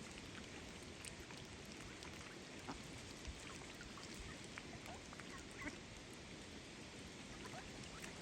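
Faint outdoor hiss with scattered soft ticks and small water sounds from a flock of ducks nearby.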